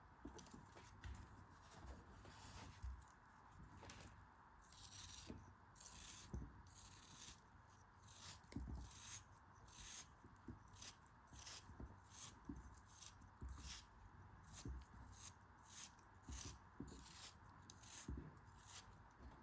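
Faint, crisp scraping and crinkling strokes, about one or two a second, with soft thuds under some of them: hands working a crumbly or papery material close to the microphone.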